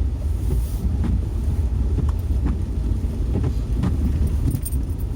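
Steady low rumble of a car's engine and tyres heard inside the cabin while driving, with a few faint clicks and ticks.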